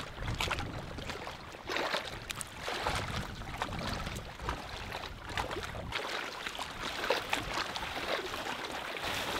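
A person wading in chest waders through choppy shallow water, legs sloshing and splashing with each stride. Wind rumbles on the microphone for the first several seconds, then eases.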